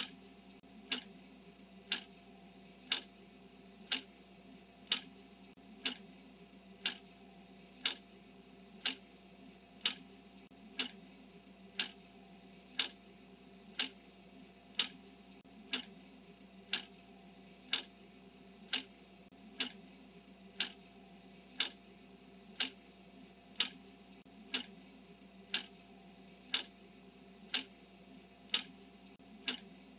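Clock ticking once a second, a sharp, even tick marking each second of the countdown.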